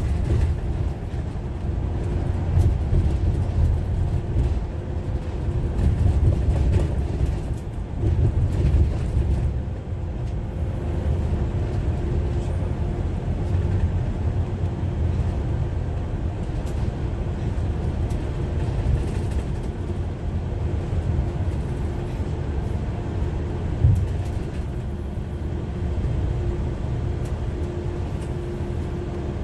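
A moving bus's engine and road noise heard from inside the bus: a steady low rumble with a faint constant hum, and one brief knock near the end.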